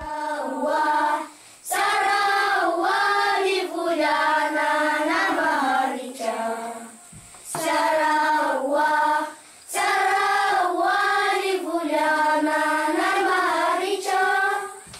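A class of children singing a welcome song together in unison, in sung phrases broken by three short pauses.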